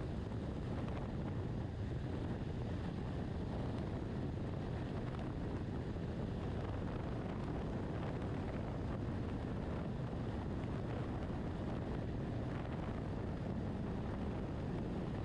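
Steady rush of wind and road noise from a BMW R1200RT motorcycle riding at highway speed through strong gusty crosswinds, the wind buffeting the microphone.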